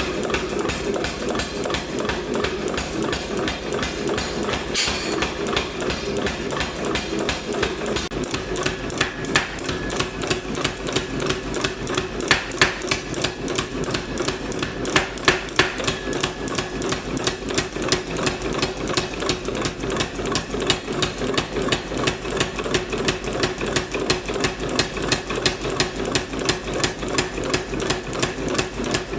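Power hammer pounding hot steel round stock in a fast, steady rhythm of several blows a second, forging the bar flat and thin.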